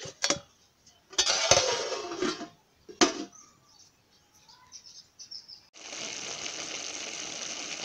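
Aluminium pot lid handled, with a sharp metallic clank about three seconds in. Then, from about six seconds, a steady sizzle of potatoes and greens cooking in the aluminium pot.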